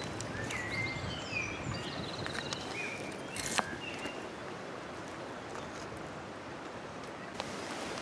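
Small birds chirping and trilling over a steady outdoor background rush, with the birdsong dying away after about three seconds. A sharp click sounds about three and a half seconds in.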